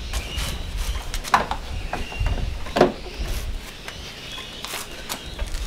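Holden Commodore's plastic front grille being pulled free of the car's nose: several sharp clicks and knocks of its retaining clips letting go and plastic knocking against plastic, the loudest about halfway through.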